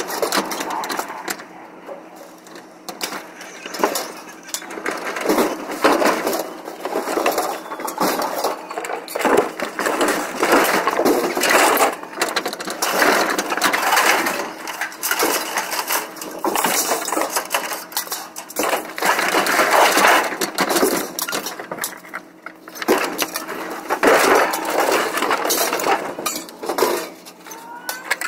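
Scrap metal clanking and clattering as pieces are pulled off a trailer and dropped onto the ground, in many irregular bangs and clinks, with a refrigerator tipped over onto the pile.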